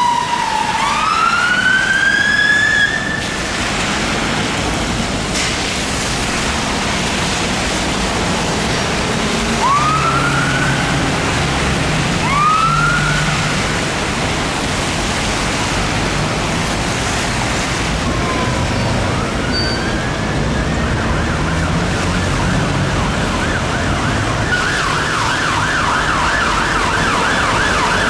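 Fire engine electronic sirens in city traffic. A wail winds down at the start, short rising whoops come about ten and twelve seconds in, and a fast warbling yelp takes over near the end, all over steady traffic noise.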